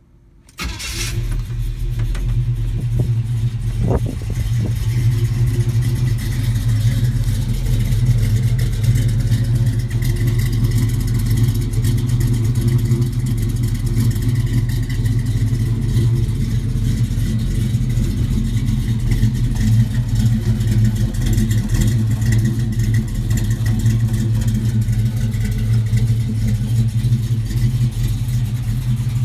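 1956 Chevy pickup's engine starting up about half a second in, then idling steadily through its exhaust.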